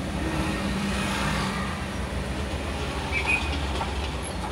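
Street traffic: vehicle engines idling and creeping past in slow city traffic, a steady low rumble, with a brief high squeak about three seconds in.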